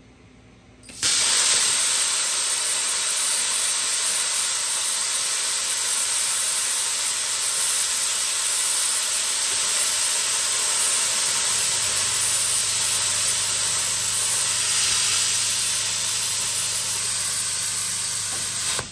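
Plasma cutter arc firing about a second in and cutting through the steel deck of a brush hog with a loud, steady hiss, which cuts off at the very end. A low hum joins in about twelve seconds in.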